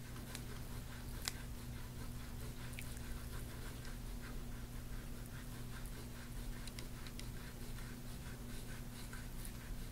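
Gua sha tool scraping over the skin of a bare back in short, repeated strokes: a soft, scratchy rubbing, with one sharper tick about a second in, over a faint steady hum.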